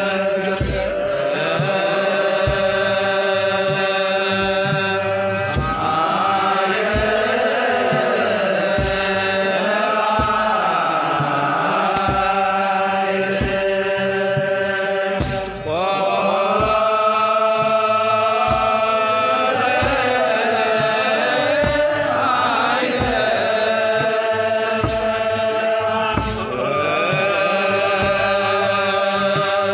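Ethiopian Orthodox clergy chanting wereb in unison, in long held notes that rise and fall. Under the chant, a kebero drum and hand sistrums mark a slow, steady beat of about one stroke a second.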